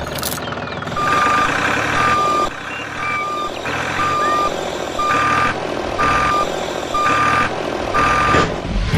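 Vehicle reversing alarm beeping about once a second, eight half-second beeps at one steady pitch, over a running truck engine.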